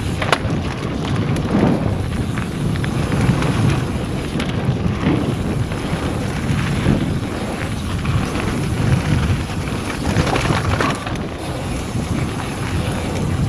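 Mountain bike riding fast down a gravel forest trail: wind buffeting the camera microphone over the steady rumble of the tyres, with the odd sharp knock from the bike over bumps.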